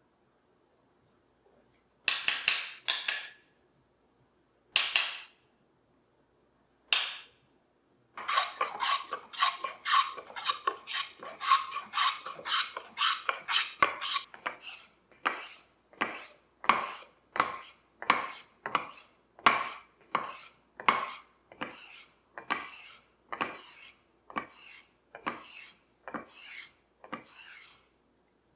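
Wooden hand plane taking shavings off a walnut stool seat: a few separate strokes, then a quick run of short strokes, then steady, evenly spaced strokes about one and a half a second, each a short scrape.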